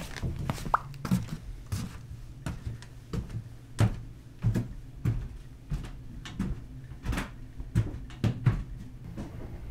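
Footsteps in house slippers on a wooden floor: irregular soft thuds and taps, about two or three a second, over a low steady hum.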